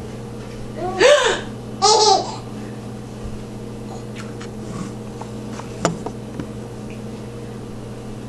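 A baby giggling, the giggles broken by hiccups: two short high-pitched squeals about a second apart, then only small faint sounds.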